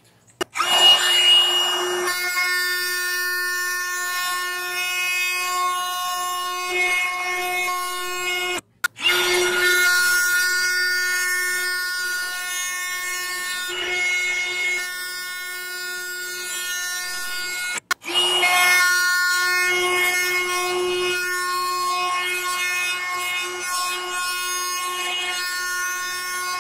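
Compact portable router fitted as a laminate trimmer, running at speed with a steady high whine as its bit trims plywood edges flush against a template. The sound breaks off for an instant twice.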